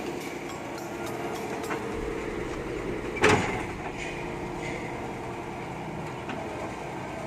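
Hitachi UH07 excavator's diesel engine running steadily, with a single sharp metallic clank about three seconds in.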